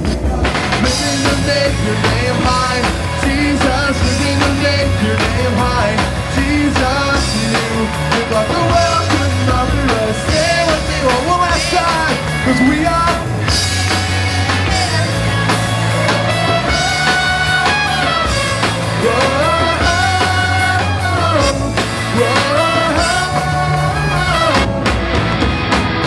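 Live rock praise band playing a full-band passage, with bass and drums under a gliding melodic lead line.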